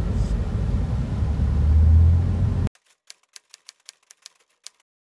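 Steady road and engine rumble heard inside a moving car, growing deeper about two seconds in, then cut off abruptly. After a short gap comes a quick run of about ten sharp typewriter key clicks, a sound effect for a caption being typed onto the screen.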